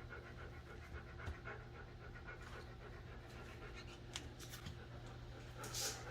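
A dog panting in quick, faint breaths over a steady low electrical hum.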